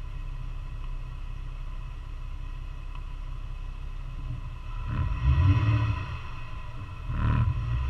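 Off-road vehicle's engine running with a steady low rumble, growing louder as it pulls away about five seconds in and again near the end.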